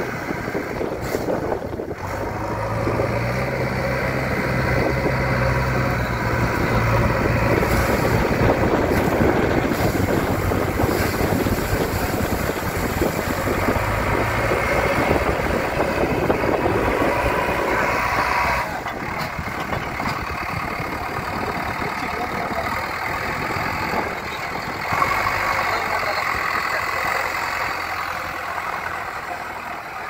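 JCB 3DX backhoe loader's diesel engine running steadily as the machine wades through shallow water, with water churning around the wheels. About two-thirds of the way through it changes suddenly to a quieter, steady idle.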